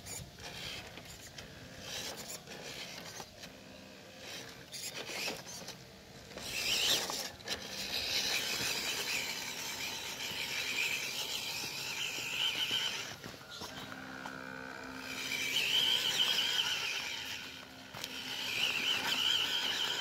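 MN99S remote-control crawler's small electric motor and gear train whining at a high, wavering pitch as it drives in spurts, starting about a third of the way in, easing off briefly, and rising again twice near the end.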